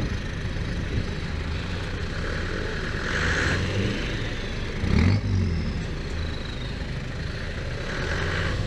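Land Rover Defender 4x4 engines running steadily at low revs, with a brief thump about five seconds in.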